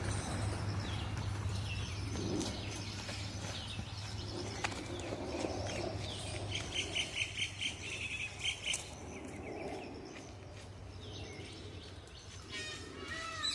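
Birds chirping and calling, with a quick run of about nine sharp, evenly spaced high notes midway and a few arching calls near the end, over a low steady hum that fades out about halfway.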